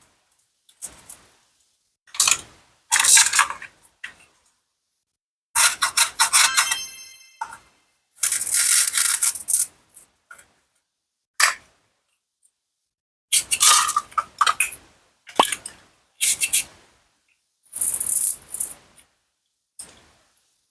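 Toy plastic and wooden fruits and vegetables cut apart with a toy knife: a string of short scraping, clacking and rattling cutting sounds, separated by silent gaps. About a third of the way in, a ringing, pitched sound effect is laid over one of the cuts.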